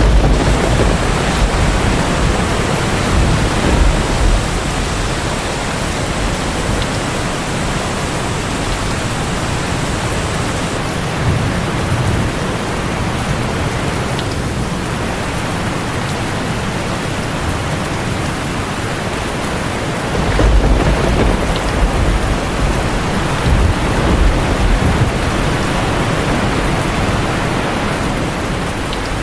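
A steady, loud rush of falling water, with deep rumbling swells near the start and again about two-thirds of the way through.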